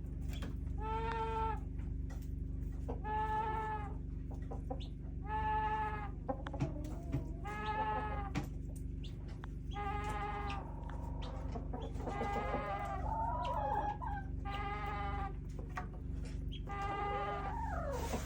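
A chicken repeating an odd call about every two seconds, each call a short note held at one pitch. Other sliding, chirpy calls join in near the middle and again near the end, over a steady low hum.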